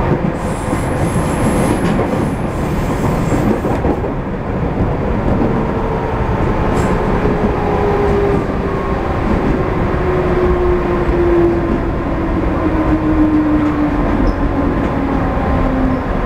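Electric commuter train running, heard from the driver's cab: a thin high wheel squeal on the curve for the first few seconds, then a motor whine that falls steadily in pitch as the train slows into the station.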